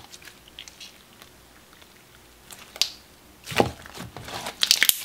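Thick clear slime being kneaded and stretched by hand, giving small sticky clicks and wet squelching pops; the loudest squelches come in the last second and a half.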